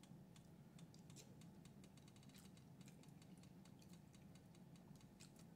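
Near silence with faint, irregular small clicks of quiet eating.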